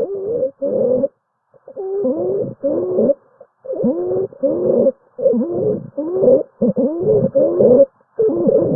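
Lung sounds heard through a stethoscope: musical wheezes, short pitched tones that fall in pitch. They come about two a second, roughly in pairs, breath after breath.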